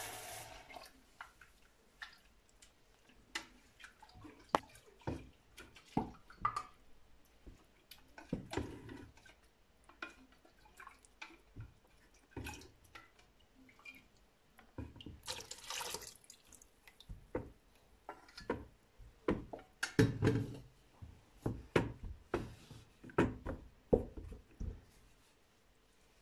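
Wooden spoon stirring thin teff batter in a plastic bucket: irregular clicks and knocks of the spoon against the bucket, with wet slaps and drips of batter. A brief hiss comes about halfway through.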